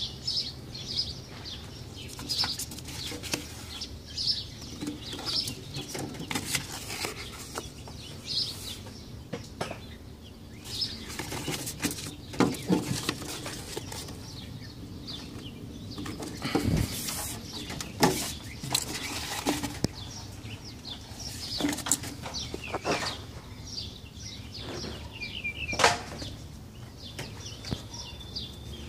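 Scattered clicks, knocks and rustling from a handheld phone being moved about, with a few louder knocks near the middle and near the end. Small birds chirp now and then, mostly in the first half.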